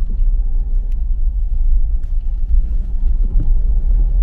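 A car driving along a rough forest dirt road, heard from inside the cabin: a steady low rumble, with a few short knocks.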